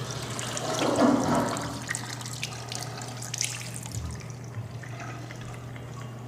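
Water splashing and dribbling in a small bowl, loudest about a second in and then settling to faint trickling, with a steady low hum underneath.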